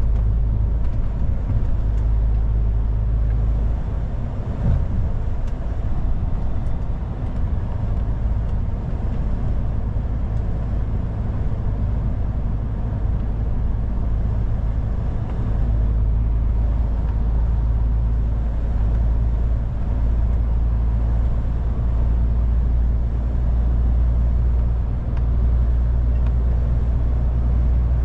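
MAN TGX truck cruising at motorway speed, heard from inside the cab: a steady low drone of engine and road noise with an even rumble over it.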